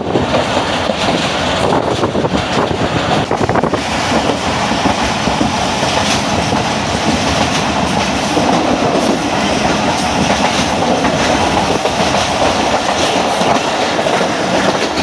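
Passenger train running on the rails: a steady, loud rumble and rattle of the carriages with scattered clacks from the wheels.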